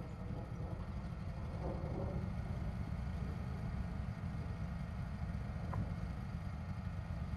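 Wood-Mizer LT15 portable band sawmill running steadily, a low engine rumble.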